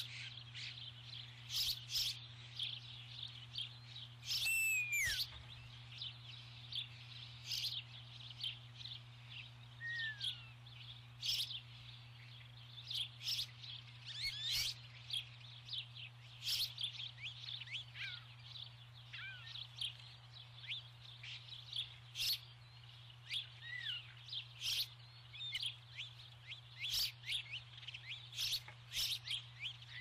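Songbirds chirping and calling, with many short chirps overlapping throughout and an occasional downward-sliding whistle. A steady low hum runs underneath.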